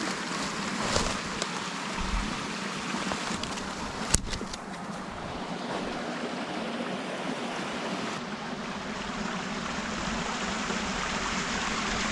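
Creek water rushing steadily, with a single sharp click about four seconds in.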